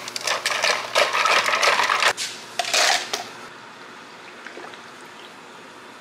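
Ice cubes clinking and rattling in a plastic cup as an iced tea is stirred with a long spoon, busy for about two seconds, then one more short burst before it stops about three seconds in.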